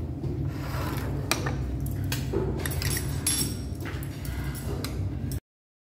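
Restaurant ambience: scattered clinks of bowls and utensils over a steady low hum, cut off abruptly near the end.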